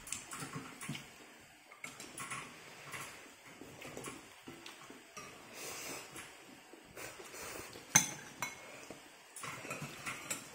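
A metal spoon and wooden chopsticks clinking and scraping against a ceramic soup bowl while eating noodle soup, with one sharp clink about eight seconds in.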